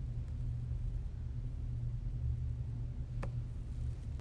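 Steady low hum of recording background noise between narrated lines, with one faint click about three seconds in.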